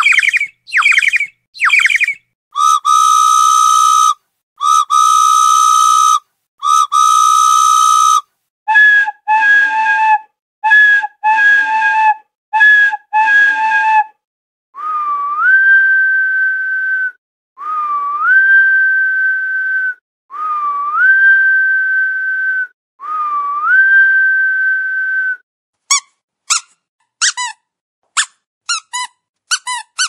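A run of whistle sound effects with clean gaps between them: three short falling chirps, then three long steady whistles, then five quick double toots, then four long whistles that each rise and then hold, and a burst of rapid short chirps near the end.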